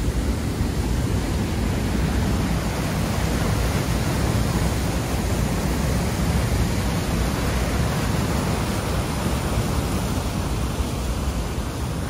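Rushing water of a rocky mountain stream and waterfall: a steady, even noise with no let-up.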